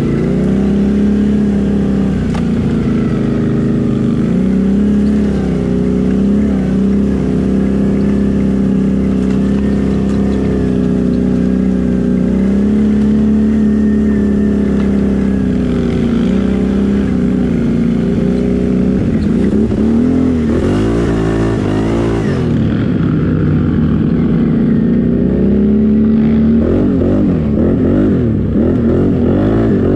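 Can-Am Renegade 800 ATV's V-twin engine running under way, its pitch mostly steady with slow changes in throttle. About two-thirds of the way in, and again near the end, the pitch swings rapidly up and down as the throttle is blipped on and off.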